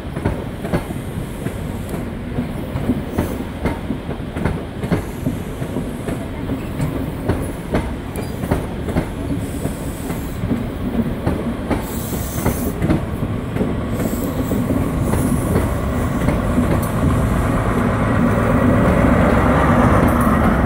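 InterCity 125 High Speed Train coaches rolling past, their wheels clicking over the rail joints in a steady rhythm over a low rumble. The sound builds toward the end as the rear diesel power car comes by with its engine running.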